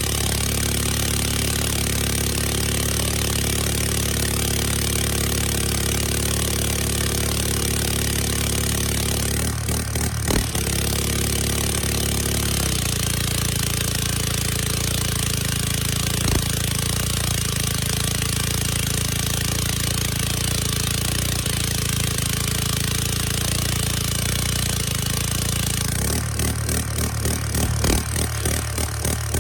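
Briggs & Stratton engine of a Power Boss pressure washer running steadily under test. Its note shifts about twelve seconds in and again near the end.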